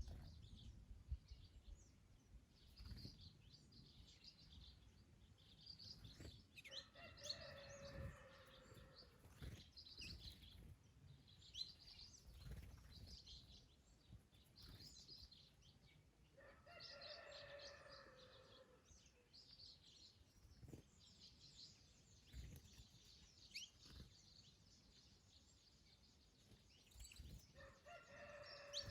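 Faint small birds chirping and tweeting throughout, with a rooster crowing three times, each crow about two seconds long and falling away at the end, the last one near the end.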